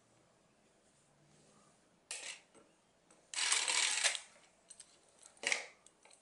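A plastic dragonfly wand toy rattling and scraping against a wooden cat-tree shelf as a cat paws at it. There are three bursts of rattling; the second is the loudest and lasts almost a second, with small clicks between them.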